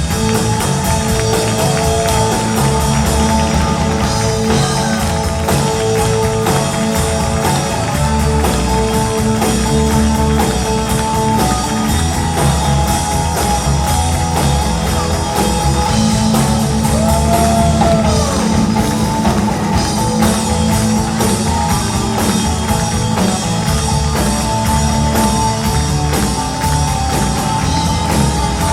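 Live rock band playing an instrumental passage: drum kit and guitars, with long held notes and bent notes over the beat.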